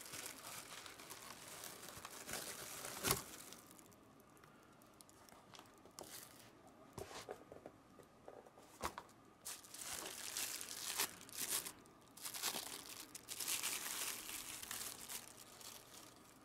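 Packing material crinkling and tearing in irregular rustling bursts as a boxed replica lightsaber is unwrapped, with a sharp knock about three seconds in.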